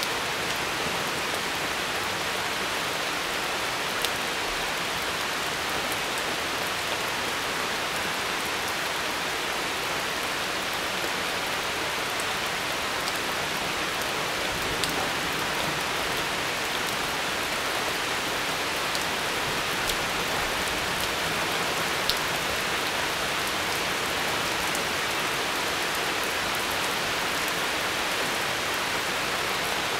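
Steady, heavy rain from a thunderstorm, an even hiss with a few sharp ticks now and then.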